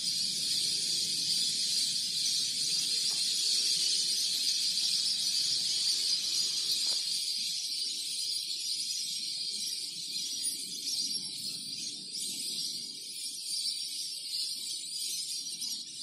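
Dense, steady high-pitched chorus of animal calls, with a faint low rumble beneath.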